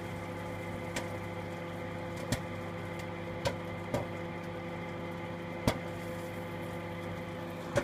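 Popcorn popping in a paper bag inside a small 650–700 W microwave oven: sharp irregular pops, several in a few seconds, over the oven's steady running hum.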